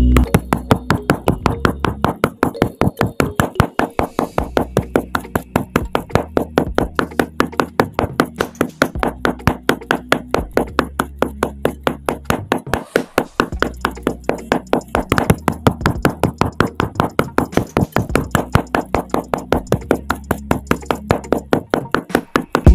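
Rapid, even knocking, about four knocks a second, over a low drone that shifts in pitch every few seconds.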